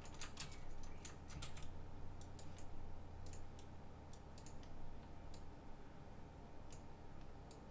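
Irregular clicks of a computer mouse and keyboard: a quick run of clicks in the first two seconds, then sparser single clicks, over a faint low hum.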